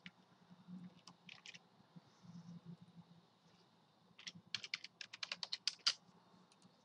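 Computer keyboard typing faintly: a couple of isolated key clicks about a second in, then a quick run of about ten keystrokes between four and six seconds in as a short command is typed into a terminal.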